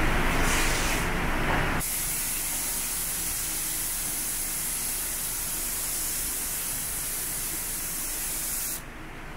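Compressed-air gravity-feed spray gun hissing steadily as it sprays camo paint through a stencil onto an aluminum boat hull. The hiss starts about two seconds in and cuts off near the end. A louder, broad noise fills the first two seconds.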